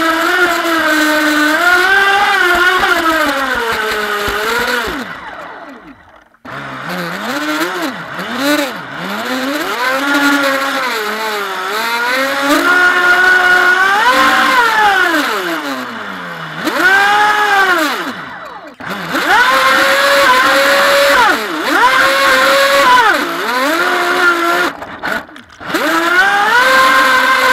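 Brushless electric motor of a Feilun FT011 RC racing boat whining, its pitch rising and falling with the throttle, over water rushing along the hull. The whine drops away briefly three times.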